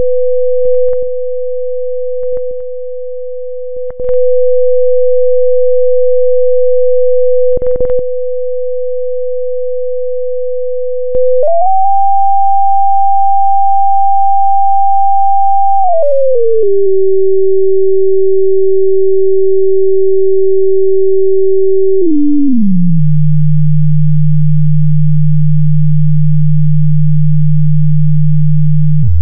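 Pure electronic sine tone from a sound-simulation program, held at 500 Hz for about eleven seconds while its loudness dips and returns a few times with small clicks. It then jumps up to about 790 Hz, steps down to a lower tone near 16 s, and steps down again to a low hum near 150 Hz as the frequency is dialled down.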